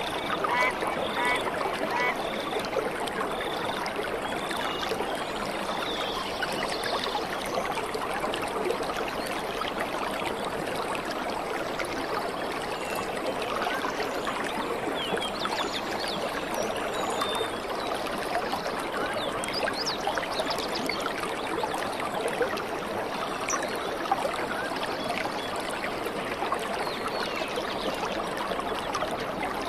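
Water of a rocky stream below a waterfall running steadily over stones, an even rushing. A brief run of evenly repeated high chirps sounds in the first couple of seconds.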